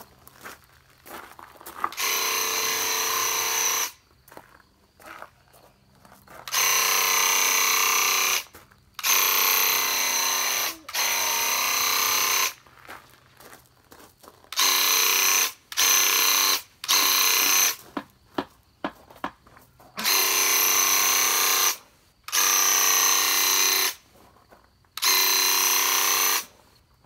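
Graco Ultramax cordless handheld airless paint sprayer running in about ten separate bursts of one to two seconds as the trigger is pulled and released: each burst a steady buzz from the pump with a hiss of spray.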